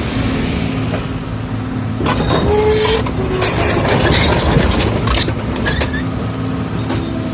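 Excavator's diesel engine running steadily. From about two seconds in until about five and a half, loud scraping and clattering with a few short squeaks rise over it.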